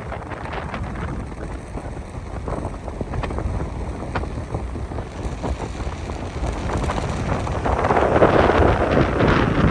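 Hurricane wind buffeting the microphone in a steady rumble over heavy surf, with a stronger gust coming in near the end.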